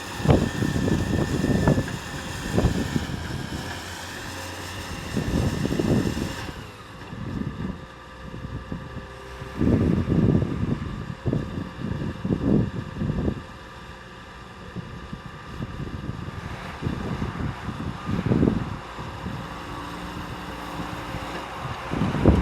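A vehicle engine running steadily under irregular gusts of wind buffeting the microphone.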